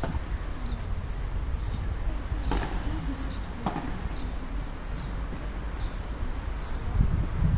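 Padel rally: a few sharp hits of the ball off rackets and the court, over a steady low rumble.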